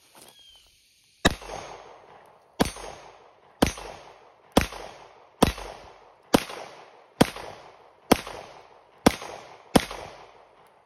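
Glock 17 9mm pistol fired ten times in slow, steady succession, about one shot a second, each crack trailing off in an echo.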